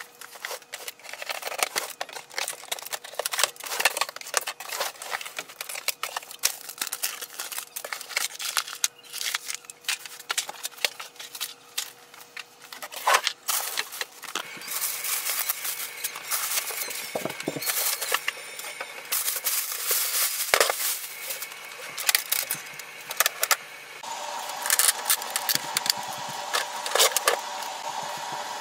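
Hand unboxing of a printer: cardboard box and packing handled with many irregular clicks, knocks and scrapes. From about halfway in, the plastic bag and foam inserts crinkle and rustle as the printer is pulled out of them.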